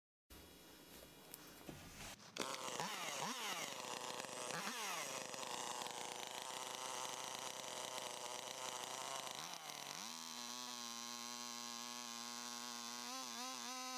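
Stihl chainsaw engine coming in suddenly about two seconds in and revving up and down twice, then running at a steady high pitch. From about ten seconds in it drops to a lower, steady pitch under load as the chain cuts across the base of a log, wavering near the end.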